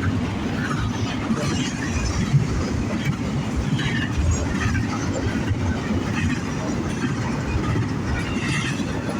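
Norfolk Southern freight train passing close by at speed: a steady rumble of the cars with the clickety-clack of wheels over rail joints.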